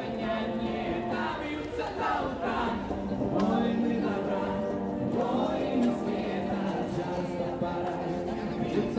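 A song sung live with musical accompaniment: wavering sung lines over a steady held low note.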